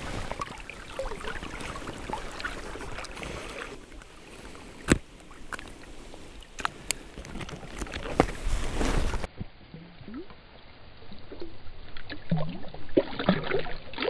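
Water splashing and sloshing close to the microphone as a caught pike is handled and released into the river. A few sharp knocks come from the handling.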